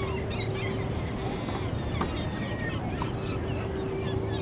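Added harbour ambience: a steady low rumble with many short bird calls over it, a held hum that drops out about a second and a half in and returns near the end, and a few small clicks.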